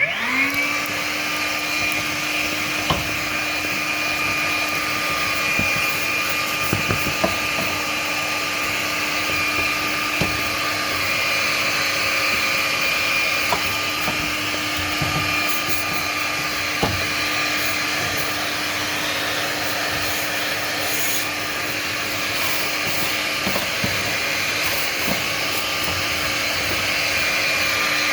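HiKOKI RP3608DB 36V cordless vacuum cleaner spinning up at the start with a rising whine, then running steadily with scattered clicks as its nozzle works along the dusty fins of a fan convector.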